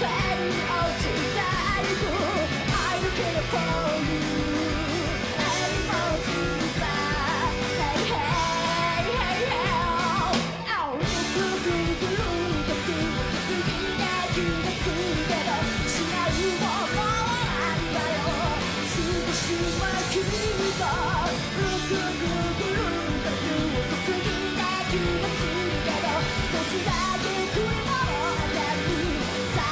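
Live rock band playing: a woman singing lead over electric guitars, bass and drums. A short break with a falling sweep about eleven seconds in, then the full band again.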